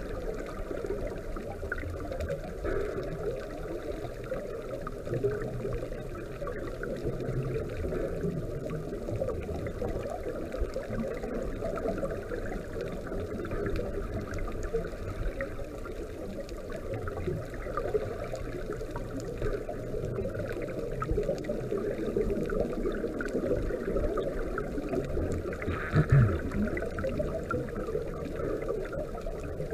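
Muffled underwater sound heard through a camera housing: a steady bubbling and rushing of water from scuba divers' exhaled air. A brief louder low gurgle comes about 26 seconds in.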